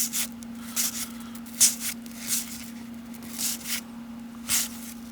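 Baseball cards being slid one by one off a pack's stack: several short, dry swishes of card stock rubbing on card stock, about a second apart, over a steady low hum.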